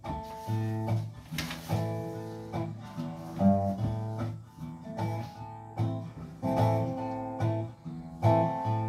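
Small acoustic string band playing the instrumental intro to a country song, before the vocals come in: rhythmic strummed and picked guitar with bowed cello underneath, recorded on a phone.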